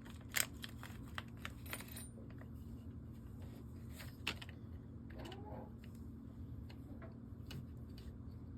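Small steel gun parts being handled on a tabletop: light metallic clicks and taps, a quick cluster in the first two seconds, then scattered single ticks.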